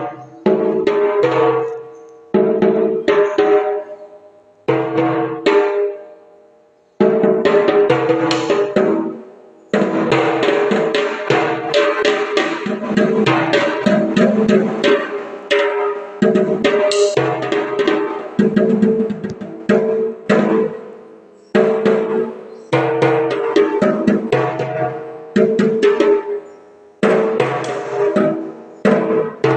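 Triple tenor drums struck rapidly with sticks, in fast runs and rolls across the drums' ringing pitched heads. The first few seconds hold short phrases with gaps between them; from about seven seconds in the playing runs on almost without a break, pausing briefly a few times near the end.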